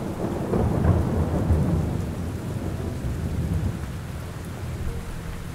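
Steady rain with a low roll of thunder that swells about a second in and fades away over the next few seconds.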